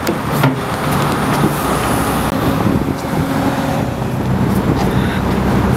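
Engine of a livestock transport truck running close by, a steady low hum over road traffic noise.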